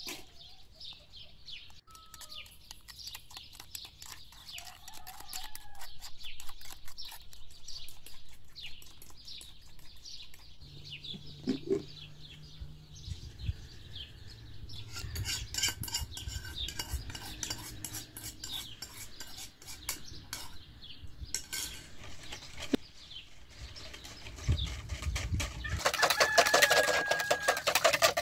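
Kitchen utensils stirring and clinking against metal bowls in a run of quick clicks, then a wire whisk rapidly beating batter in a plastic bowl near the end, the loudest part.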